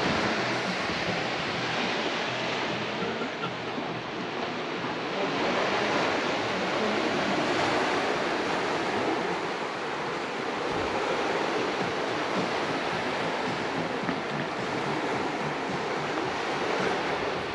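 Sea surf, waves breaking on a beach in a steady rush.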